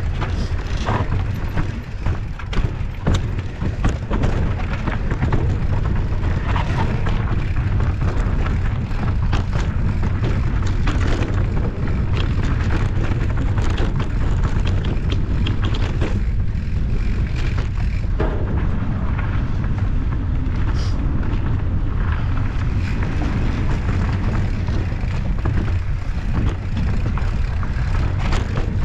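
Wind rumbling heavily on the microphone during a mountain-bike ride, with frequent short clicks and rattles typical of a bike over rough ground.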